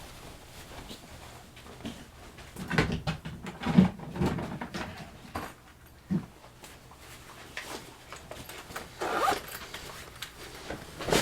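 Small metal tools and padlock parts being handled on a workbench: scattered scrapes, rubs and light clicks, with a short knock about six seconds in.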